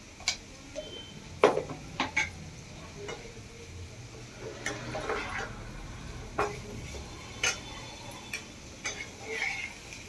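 Steel spoon stirring diced raw banana in a non-stick frying pan, with irregular sharp clicks as the spoon knocks and scrapes against the pan.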